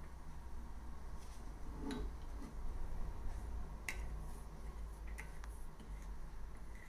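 A plastic measuring spoon clicking a few times against a ceramic bowl as egg yolks are stirred, over a low steady background hum.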